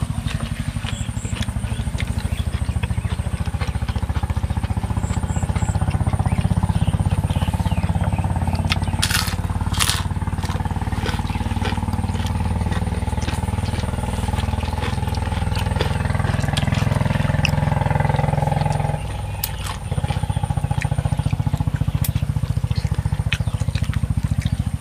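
Strong wind rumbling on the microphone, easing for a moment about nineteen seconds in, with chewing and a few sharp clicks.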